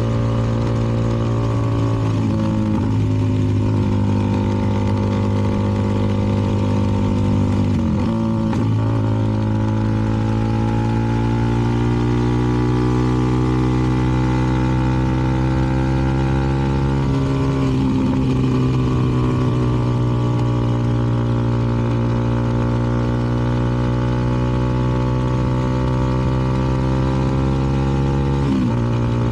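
CFMoto 300NK single-cylinder engine with an aftermarket KO exhaust, running steadily under way. The pitch dips briefly a few times as the revs change.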